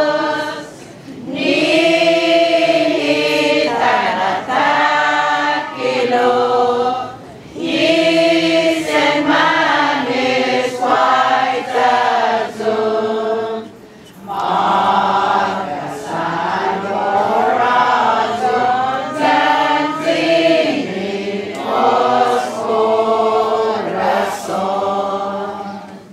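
Group of voices singing a hymn together, in phrases several seconds long with brief pauses between them.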